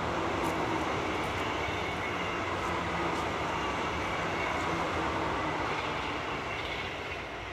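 Suzuki GSX-R 1000's inline-four running at steady speed on the road, heard under a heavy, even rush of wind noise.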